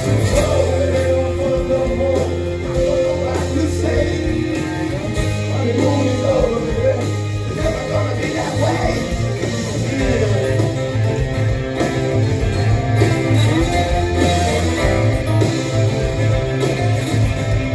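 Rock band playing live: electric and acoustic guitars, bass guitar and drums, with a man singing lead over a steady bass line.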